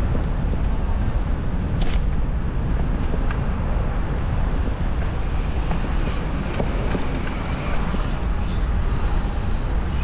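Wind buffeting the microphone of a moving bicycle, a steady low rumble with street traffic underneath. A faint higher hiss joins about halfway through.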